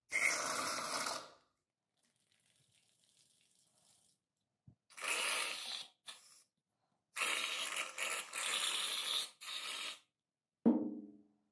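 Meat grinder forcing soft ice cream through, heard as several short noisy bursts with pauses between, then a single knock with a brief ringing near the end.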